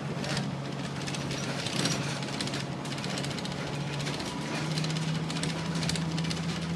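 Tour bus engine running while driving, heard from on board with road noise; the engine hum steps up slightly in pitch a little over four seconds in.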